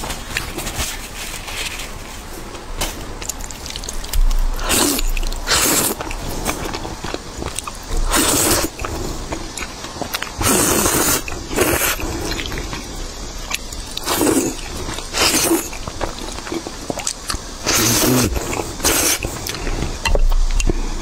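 Close-miked slurping of instant noodles in thick spicy red sauce, in short wet slurps every second or two, with chewing between them.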